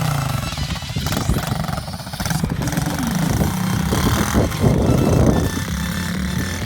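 Pit bike engine running and being revved, its pitch rising and falling.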